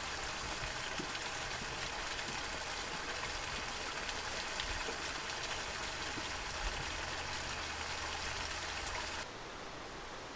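Steady hiss of water outdoors, like light rain or running water, with a few faint ticks; it cuts off abruptly about nine seconds in, leaving a quieter, duller background.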